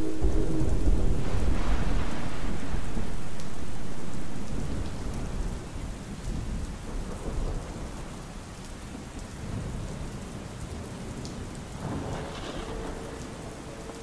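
Steady rain with a heavy rumble of thunder that is loud for the first four seconds, then fades away. A chord of steady tones, the synthesized horn of a distant train, cuts off just under a second in, and another horn chord begins near the end.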